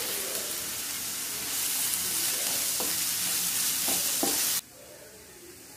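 Chopped onions, ginger and curry leaves sizzling in hot oil in a nonstick frying pan while a wooden spatula stirs them. The sizzle grows louder about a second and a half in and cuts off abruptly near the end.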